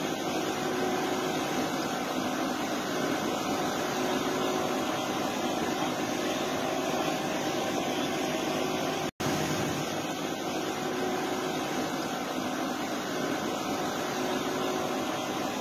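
Steady engine and hull noise aboard a passenger ferry crossing open sea, an even rush with a faint hum in it, cutting out for an instant about nine seconds in.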